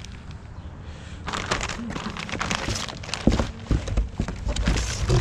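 Plastic film wrapping crinkling and rustling as long plastic-wrapped car side skirts are handled in a cardboard box, with a few dull thumps in the last couple of seconds.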